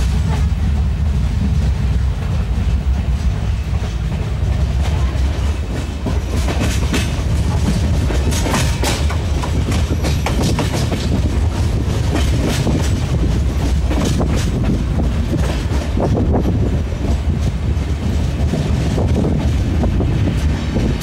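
Moving passenger train heard from inside the coach: a steady low rumble of wheels on rail, with a rapid clickety-clack of wheels over rail joints that grows busier from a few seconds in.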